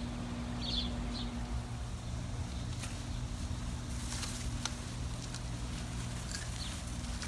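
Outdoor ambience: a steady low hum and rumble, with a few brief high chirps about a second in and faint clicks and rustles in the middle.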